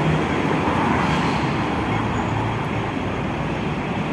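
City street traffic: a steady rumble of vehicles going by on the road, with a taxi driving past at the start.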